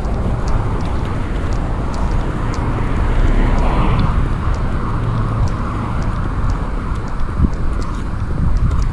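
Steady wind rumble on a body-worn camera's microphone mixed with road traffic noise, with faint light ticks about twice a second.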